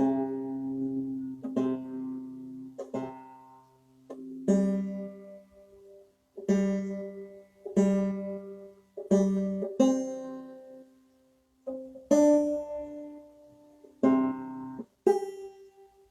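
A five-string banjo being retuned to C tuning: single strings and strums plucked one at a time at irregular gaps of a second or two, each note ringing out and fading.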